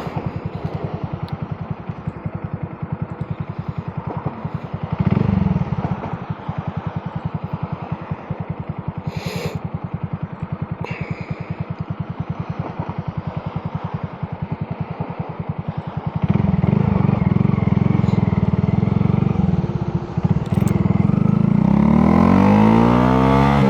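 2022 Honda Grom's single-cylinder engine running at a steady low speed, an even train of firing pulses, while the bike is ridden. It gets louder about two thirds of the way through, and near the end its pitch sweeps upward as it accelerates.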